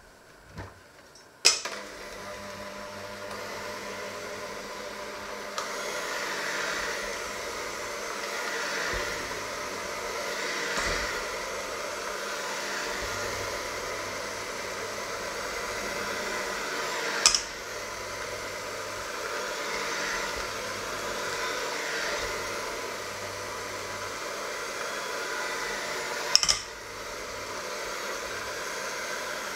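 Electric hand mixer with dough hooks kneading dough in a stainless steel bowl. The steady motor whir starts suddenly about a second and a half in and swells and eases as the hooks work around the bowl. Three sharp metallic knocks sound, at the start, about halfway through and near the end.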